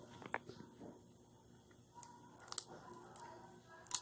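Faint chewing of peanuts, with a few sharp cracks as peanut shells are snapped open by hand, the clearest about two and a half seconds in and near the end.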